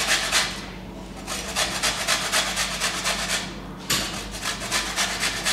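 Lemon rind being grated on a metal box grater for zest: quick rasping strokes, about five a second, broken by two brief pauses. A single sharp knock about four seconds in.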